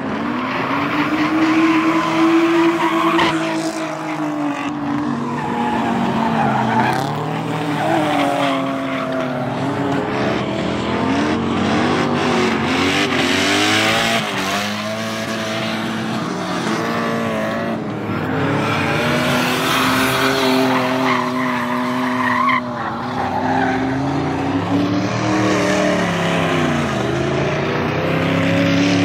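Drift cars sliding through corners: engines revving up and down over and over, with tyres squealing and skidding as the cars go sideways.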